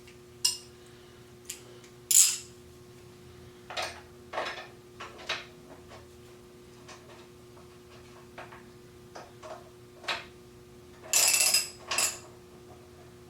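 Scattered clinks and knocks of hand tools and parts being handled, irregular and sharp, with a longer scraping burst near the end and a faint steady hum underneath.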